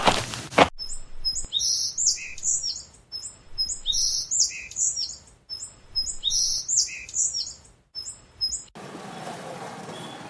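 Bird-song sound effect: one short phrase of high chirps and whistles played three times in a row, each about two and a half seconds long. It starts just under a second in, after the last knocks of a footsteps sound effect, and near the end gives way to a steady noise.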